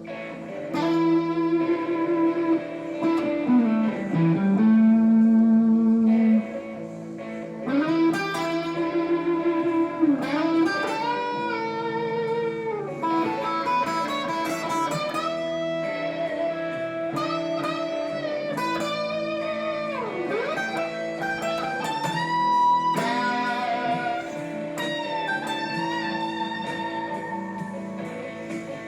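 Guitar music in a slow, blues-like style, with sustained notes that waver and several that bend or slide in pitch.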